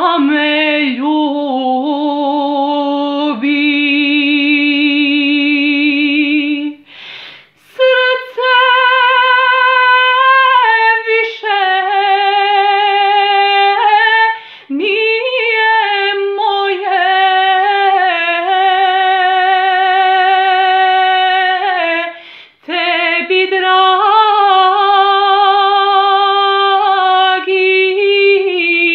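A woman singing a sevdalinka unaccompanied, in long held notes with vibrato and small ornamental turns. She breaks briefly between phrases about seven, fifteen and twenty-two seconds in.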